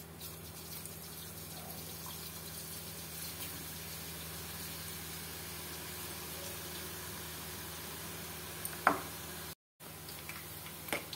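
Gram-flour batter dropping in drops into hot oil in an iron kadhai, sizzling steadily as boondi fry, with one sharp knock near the end.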